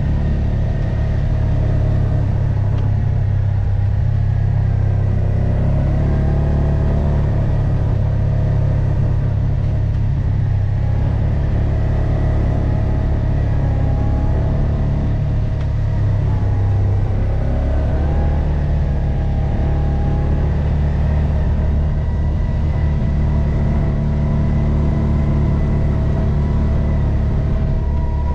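Kawasaki Teryx 800 side-by-side's engine running steadily while it pushes snow with its front plow, the engine note rising and falling a little as it works.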